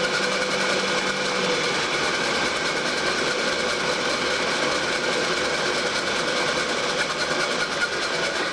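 Milling machine running with its cutter taking a pass across the workpiece: a steady whine of several tones that cuts off right at the end.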